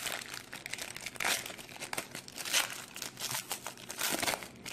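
Foil wrapper of a 2016 Panini Prestige football card pack being torn open and crinkled by hand, in several uneven crackling rustles.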